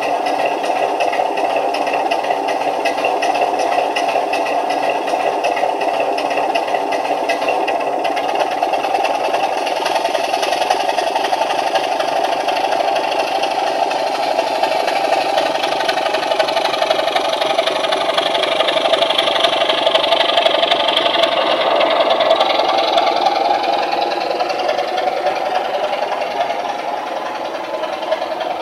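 Sound of a Class 27 diesel locomotive engine played by a LokSound V4 DCC sound decoder through a model locomotive's small loudspeaker, running steadily. Past the middle the higher tones swell and then ease back, and the level drops a little near the end.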